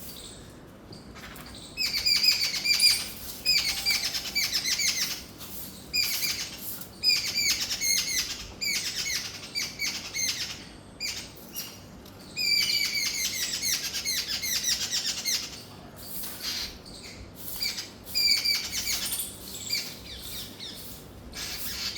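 Babbler giving repeated bouts of rapid, harsh chattering calls, each bout lasting one to three seconds with short pauses between, the longest and loudest about halfway through. The uploader takes it for a mother bird crying for a chick gone from the nest.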